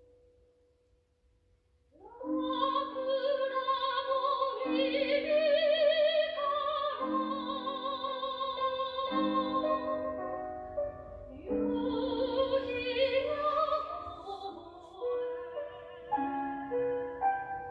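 Soprano voice singing a Japanese art song with vibrato, accompanied by piano chords struck about every two seconds. A single piano note dies away before the voice enters about two seconds in.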